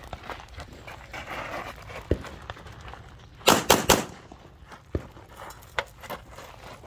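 Semi-automatic pistol fired in a quick string of three shots, a little past halfway through, with a few fainter sharp cracks before and after.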